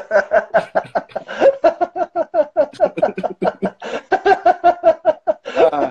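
A man laughing hard in rapid, repeated bursts, about four to five a second, pausing briefly near the end.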